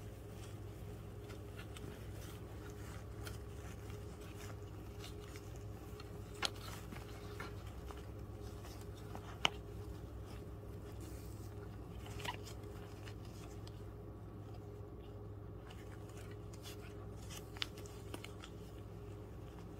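A Pomeranian mother dog licking and nuzzling her newborn puppies in shredded-paper bedding: soft wet licking and small rustles over a low steady hum, with a few sharp clicks.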